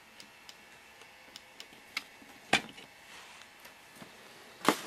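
Small plastic clicks and ticks of an LED bulb being twisted out of its socket: a few light ticks, then two sharper clicks about two and a half seconds in and near the end.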